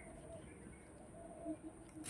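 Faint bird calls in the background: short chirps repeating every half second or so, with no loud event.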